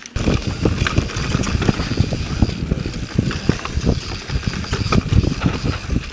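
Yeti SB4.5 mountain bike running fast down a rough dirt trail: a dense low rumble from the tyres and the rushing air, broken by many quick knocks and rattles as the bike goes over the bumps.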